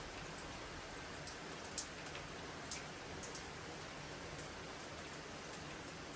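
Steady rain falling, with scattered single drops ticking sharply over the hiss; a few louder drops come about two seconds in.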